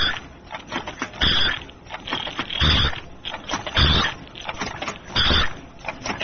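KF94 3D mask making machine running through its automatic cycle. About every 1.3 seconds there is a short hissing burst with a thump, and steady clicking and rattling runs in between.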